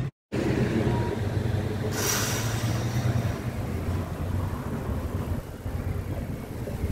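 Police patrol car's engine running as the car pulls away past at low speed, with a brief hiss about two seconds in.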